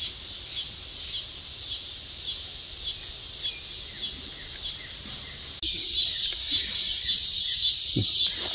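High-pitched outdoor chorus of chirping wildlife, with a short call repeating about twice a second. The chorus gets suddenly louder and denser about five and a half seconds in.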